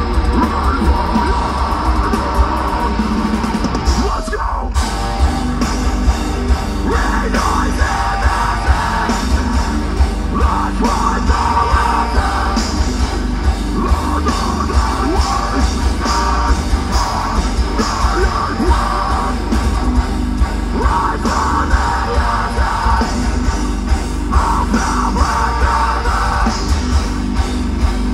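Deathcore band playing live through a festival PA: heavily distorted electric guitars, bass and drums under harsh screamed vocals that come in phrases every few seconds.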